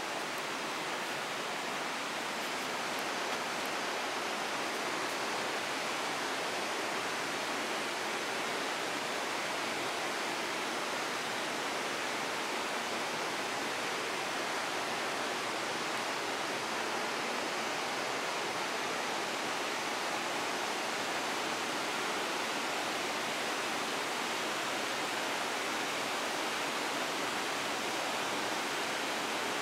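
A river flowing: a steady, even rush of water that does not change.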